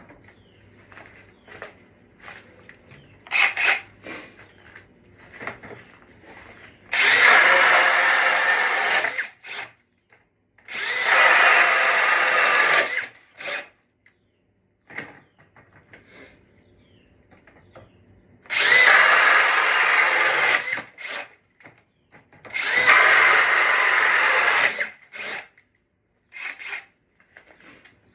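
Metabo HPT DV36DC 36-volt cordless hammer drill running in four separate runs of about two to two and a half seconds each, with small clicks and handling noise in between.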